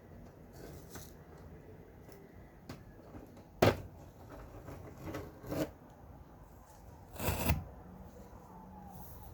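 Handling noises: a sharp knock, then two softer knocks, and a longer scraping clatter.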